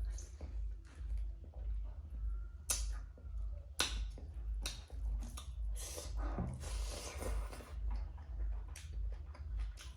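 Close-miked chewing and eating mouth sounds: a steady chewing rhythm with wet smacks and sharp clicks, the sharpest a little under three seconds in and about four seconds in.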